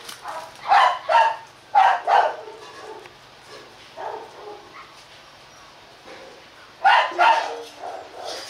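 H'mong bobtail dogs barking: loud short barks coming in pairs, two pairs within the first two and a half seconds and another pair about seven seconds in, with fainter barks between.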